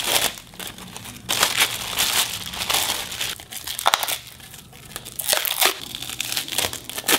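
Clear plastic wrapping rustling on and off as hands pull it off a tinted plastic motorcycle flyscreen.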